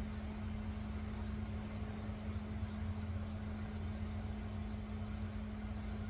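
Welding machine running in the shop: a steady low electrical hum with a faint even hiss, unchanging throughout.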